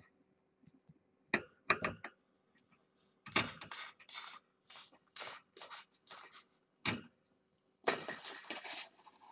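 Scattered light clinks, clicks and scraping rustles of small toys and objects knocked about as kittens play, in short separate bursts with a longer rustling stretch about three seconds in and again near the end.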